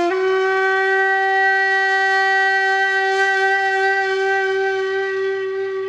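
Alphorn sounding one long, steady note, rich in overtones, that lifts slightly in pitch as it settles and fades a little near the end.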